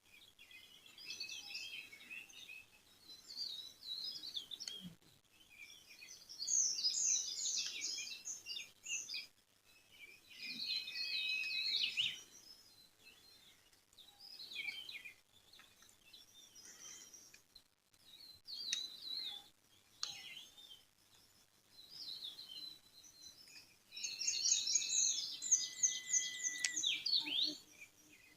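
Songbirds chirping and twittering in bursts of rapid high-pitched notes with short pauses between phrases, busiest about a quarter of the way in and again near the end, where one bird holds a short whistle.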